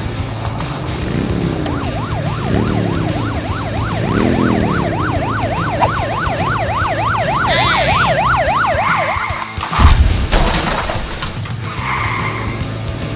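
Police car siren in its fast yelp, the pitch sweeping up and down about three or four times a second, over background music. A sudden loud crash comes near the ten-second mark, just after the siren cuts off.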